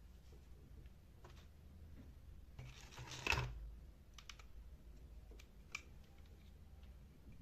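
Small clicks and taps of tools and metal parts being handled on a workbench, with a louder scraping rattle lasting about a second, about three seconds in.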